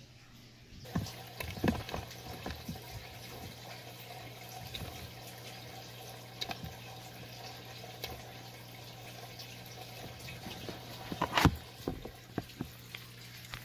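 Giant African bullfrog eating a nightcrawler: wet smacking and clicking from its mouth as it works the worm down, with a loud sharp snap near the end as it lunges.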